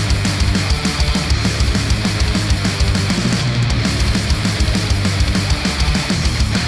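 Heavy metal music with distorted guitars and a fast, driving kick drum, played through a Sennheiser headphone and picked up by measurement microphones.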